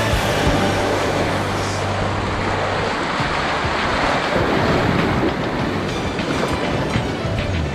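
Whitewater rushing and splashing around a kayak running a rapid: a loud, steady roar of water.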